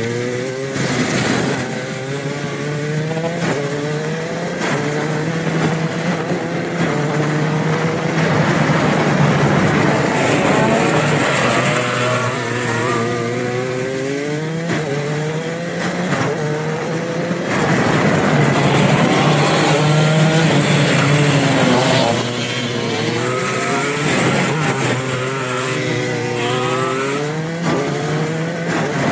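125cc two-stroke shifter kart engines racing flat out. The pitch climbs again and again and drops back briefly at each gear change.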